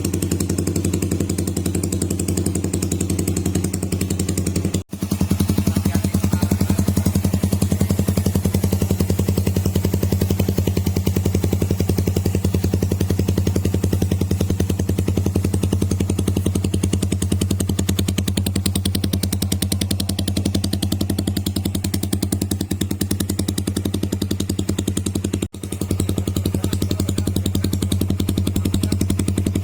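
Suzuki Raider 150's single-cylinder four-stroke engine idling steadily through a freshly fitted aftermarket open-elbow exhaust pipe, without revving. The sound cuts out for an instant twice, about 5 seconds in and near 25 seconds in.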